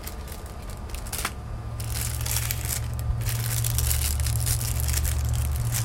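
Small plastic bags crinkling and rustling as they are handled. A low, steady rumble grows louder from about two seconds in.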